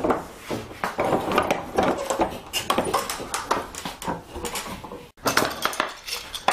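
Irregular wooden knocks, clicks and rattles of a yew bow being handled and set into a bench vise on a wooden workbench. The sound drops out sharply about five seconds in.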